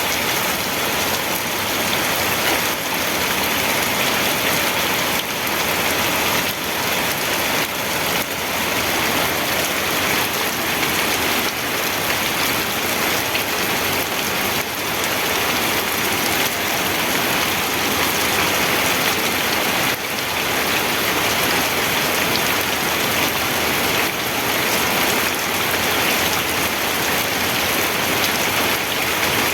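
Steady rainfall, an even hiss of rain falling on a surface with no thunder or other sounds.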